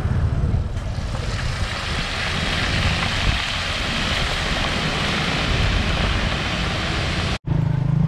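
Deep-frying oil in a street-cart wok sizzling as a scoopful of insects is tipped in; the hiss builds about a second in and holds, over a low rumble. Near the end the sound cuts off abruptly into a low steady drone.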